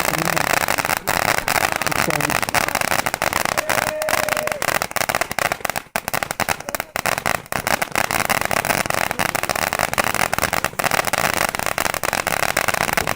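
A lit consumer ground firework burning with a steady hissing crackle, dense with rapid small pops, dipping briefly about six seconds in.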